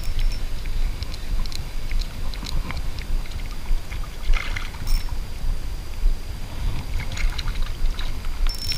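Water sloshing and wind buffeting around an action camera held just above a river's surface, with scattered light clicks while a small spinning reel is cranked. Near the end a hooked fish splashes at the surface.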